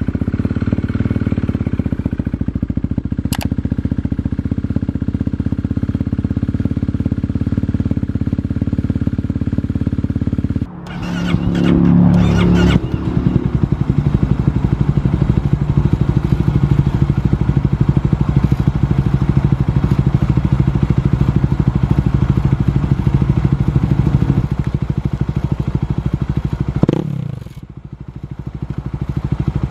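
Kawasaki KLX250 single-cylinder four-stroke, bored to 351cc, with an FMF Q4 slip-on and Megabomb header, idling steadily just after being started. About eleven seconds in the sound cuts to a rev, then steady running at a higher note. Near the end it dips and picks up again.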